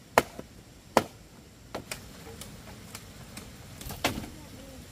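Sharp knocks of a blade chopping into green bamboo poles: two loud hits within the first second, lighter knocks after, and another loud hit about four seconds in.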